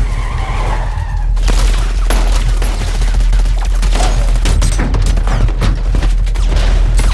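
Car tyres skidding for about the first second and a half, then sustained rapid automatic gunfire with bullets hitting the car, over a steady low rumble in a film-trailer sound mix.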